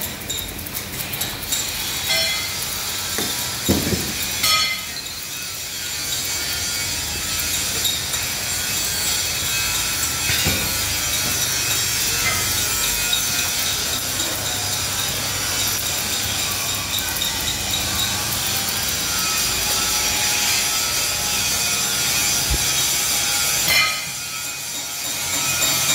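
Steady rasping machine noise of metalworking in a plough fabrication shop, with a few low knocks.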